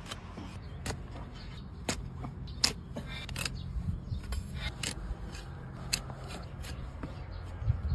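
Hoof-trimming blade cutting into a donkey's overgrown hoof horn: a series of sharp, irregular clicks and scrapes as pieces of horn are pared away.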